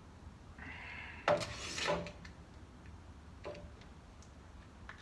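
Workshop handling noises: a short scrape about a second in, then a sharp click and a half-second rattle ending in a knock, and one more small click later.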